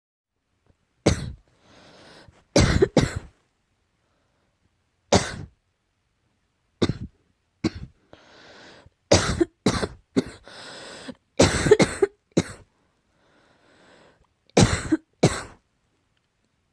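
A person coughing: about fifteen short coughs, some single and some in quick runs of two or three, with breaths drawn in between the bouts. The coughing is that of a slight cough.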